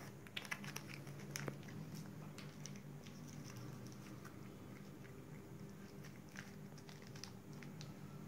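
Siberian cat biting and chewing at a treat stick: small sharp clicks and crunches, thickest in the first second and a half, then scattered. A low steady hum runs underneath.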